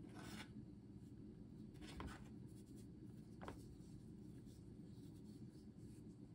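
Faint scratchy brushing as capsicum pieces are dipped and rubbed in flour in a bowl, three brief scrapes over low steady room hum.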